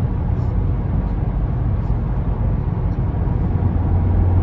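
2017 VW Golf R's turbocharged EA888 four-cylinder engine running on the road, a steady low drone with road noise. The engine is breaking up a lot, from a misfire on cylinder 3 after a Stage 1 ECU tune.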